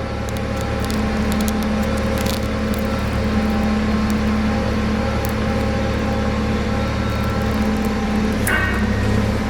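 A steady motor hum with several steady tones, running evenly throughout, with faint scattered clicks and crackles over it.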